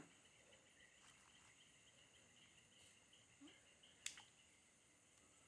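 Near silence with faint, steady insect chirring, and a single sharp click about four seconds in.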